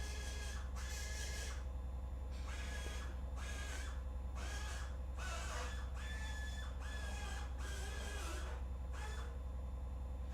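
2007 Ford Edge's engine idling as a low steady hum, running with a cylinder 1 misfire. Over it comes a short squawking tone that repeats about one and a half times a second.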